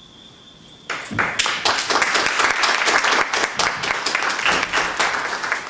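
A small audience clapping in acknowledgement, starting about a second in and dying away near the end.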